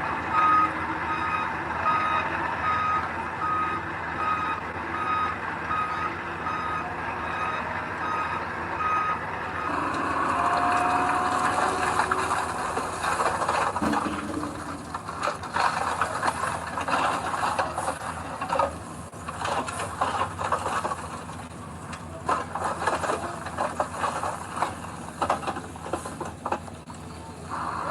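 Reversing alarm on a heavy construction vehicle beeping steadily over a running diesel engine, stopping about a third of the way through. After that the engine keeps running with many clanks and rattles.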